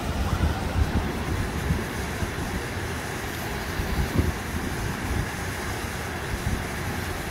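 Gusty wind rumbling on the microphone in irregular low surges, over the steady rush of a shallow stream flowing below a weir.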